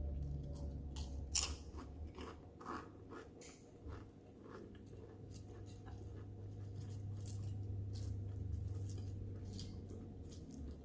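Close-up chewing of crunchy food, a turkey bacon BLT and chips: irregular crunches and mouth clicks over a steady low hum.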